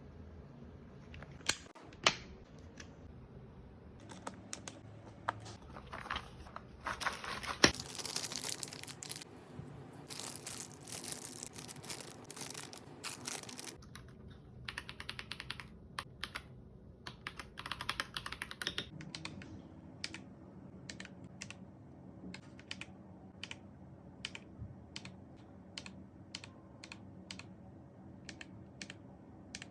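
Typing on an Akko 5075B Plus mechanical keyboard with Wine White linear switches. Two sharp clacks come first, then dense runs of fast typing, and near the end single keystrokes about two a second.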